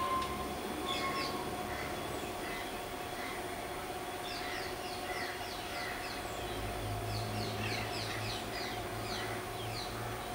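Outdoor ambience of birds calling in many short, quick falling chirps, more of them in the second half. A low rumble joins in about six and a half seconds in.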